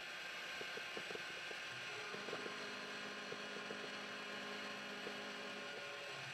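CNC milling machine taking a light finish pass on an aluminium block with an end mill and mist coolant, heard faintly as a steady hum with scattered light ticks. A low steady tone joins about two seconds in and stops shortly before the end.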